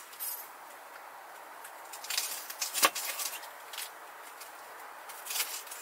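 Napa cabbage leaves being peeled off the head by hand: several short, crisp crackles and snaps, the sharpest one about halfway through, over a faint steady hiss.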